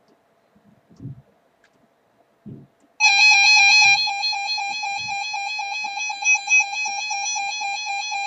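An emergency alert attention tone: a loud, harsh, steady electronic tone that starts abruptly about three seconds in and holds with a fast flutter. Before it come a few seconds of near silence with faint low thumps.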